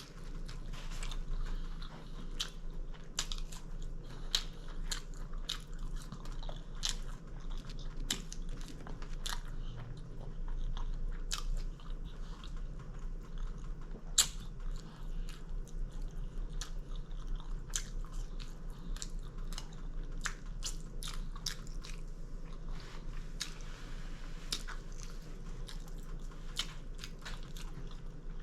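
Close-up chewing of a crispy fried chicken sandwich, with irregular crunches and wet mouth clicks throughout; one sharper click about halfway through. A steady low hum runs underneath.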